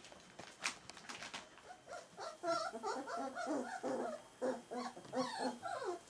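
Pyrenean Shepherd puppies, nearly four weeks old, whimpering and whining in a run of short wavering cries from about two seconds in. A few light clicks and knocks come before the cries.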